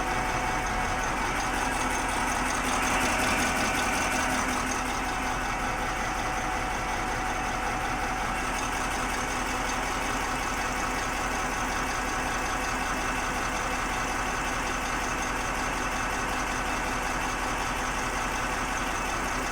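KamAZ truck diesel engine idling steadily, with the knock of a failed fuel injector.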